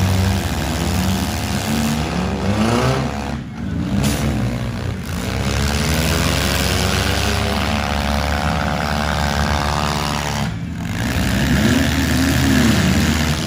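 Several four-cylinder demolition derby cars revving hard, their engine pitch rising and falling over and over as they accelerate and back up, over a wide hiss of engine and tyre noise.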